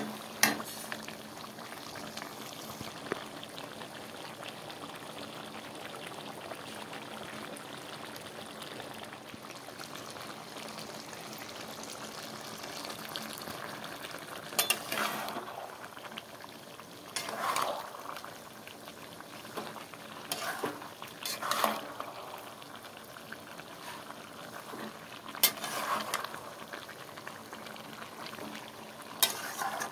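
Chicken and potato curry simmering and sizzling in a metal pan, a steady bubbling hiss. A metal spatula stirs and scrapes through it in short bouts, several times in the second half.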